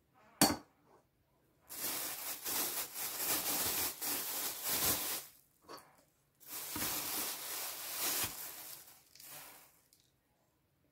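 Plastic bag rustling and crinkling in two long stretches of a few seconds each, as a spoon scoops crushed biscuit crumbs out of it. A single sharp click about half a second in.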